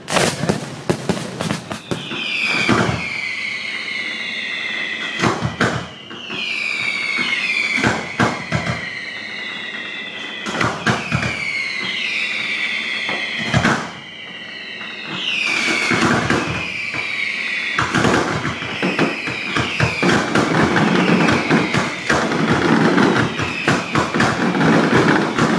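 Fireworks going off: sharp bangs every few seconds, with bursts of several whistles that each fall in pitch over a couple of seconds. About eighteen seconds in, the firing turns into a dense, continuous crackling barrage.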